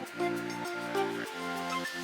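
Upbeat acoustic background music: a plucked instrument playing a steady run of notes that change about twice a second.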